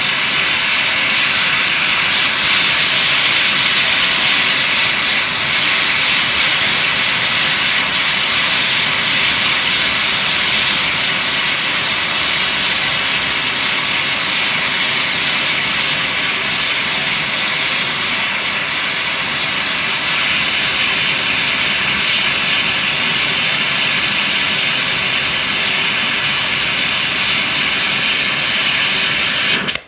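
Gas torch flame running with a steady loud hiss, heating a seized, twisted-off exhaust manifold bolt in a cast-iron tractor cylinder head to free it; the flame is shut off abruptly at the very end.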